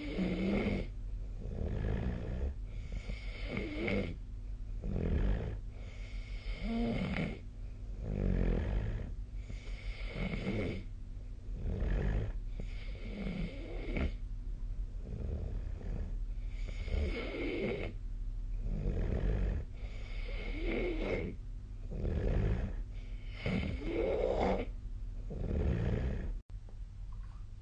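A sleeping person snoring, a rasping snore on breath after breath in a steady rhythm, about every two to three seconds, over a steady low hum.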